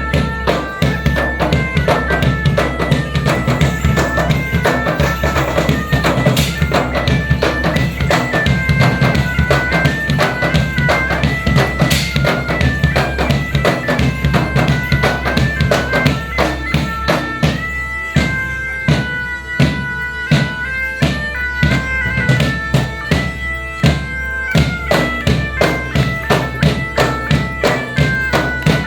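Music: a bagpipe melody over a drone, with a steady drum beat.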